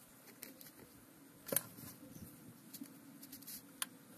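Faint small metallic clicks of a cast iron sealing ring being pressed into its groove on a transmission input shaft and its ends hooked together by hand. The sharpest clicks come about a second and a half in and again near the end.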